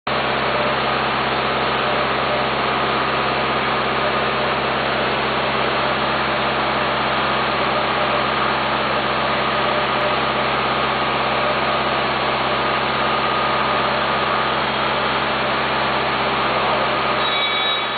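Mobile box charging and stoking vehicle running steadily in place, a constant machine hum with several steady tones. Its lower hum drops away near the end.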